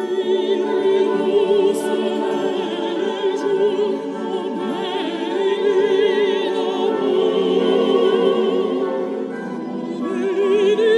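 Opera music: a singer holding long notes with wide vibrato over classical accompaniment.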